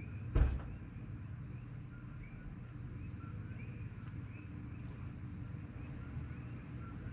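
Outdoor animal chorus after rain: a steady high-pitched insect-like trill with scattered short rising chirps, over a low steady hum. A single sharp knock sounds about half a second in.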